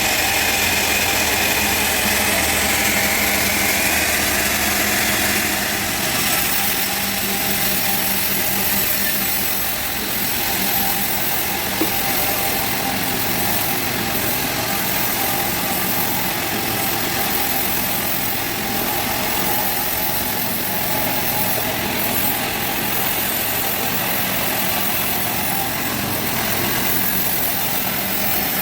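Sawmill machinery running steadily, a continuous engine drone with a hissing noise on top, somewhat higher-pitched for the first few seconds.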